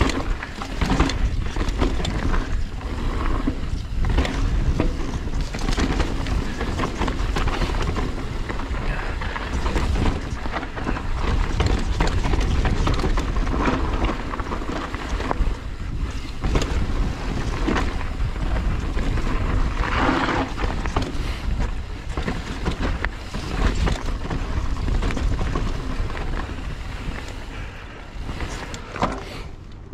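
Mountain bike riding down a steep, rough dirt trail: tyres rolling over dirt and rock, the bike rattling and knocking over the bumps, with wind rushing on the microphone.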